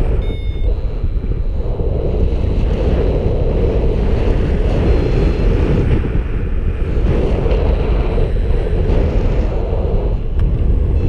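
Wind rushing over the camera microphone in a paraglider's airflow, a steady loud buffeting roar. A few brief high beeps sound near the start.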